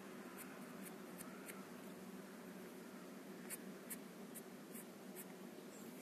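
Marker pen squeaking in a string of short strokes against the metal of a car door, marking the original position of the window regulator's bolt. Faint, over a steady low background hum.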